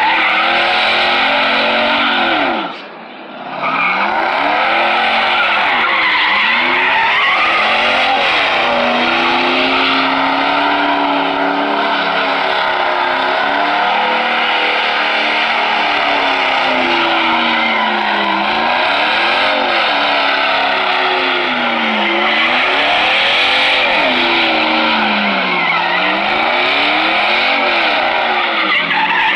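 Pickup truck doing donuts: the engine revs up and falls back again and again while the spinning rear tyres squeal and skid. The sound drops away briefly about three seconds in.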